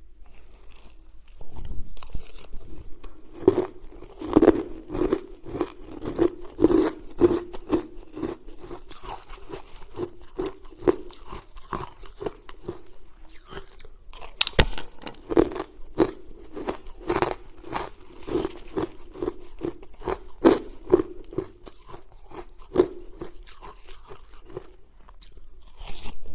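Close-up crunching and chewing of mouthfuls of shaved ice and hard ice chunks: dense, irregular crunches, starting about a second and a half in.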